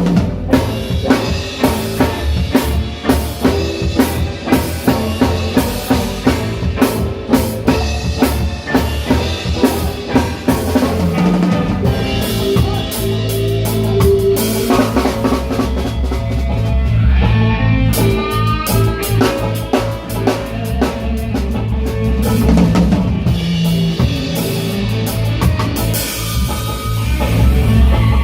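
A live reggae band playing, with the drum kit to the fore. For about the first ten seconds it is mostly a steady beat of kick drum and rimshots; then bass and guitar fill in with sustained melodic lines.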